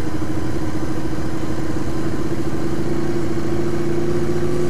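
Aprilia Tuono V4R's V4 engine running through its stock exhaust under steady cruising throttle, holding an even note whose pitch rises slightly.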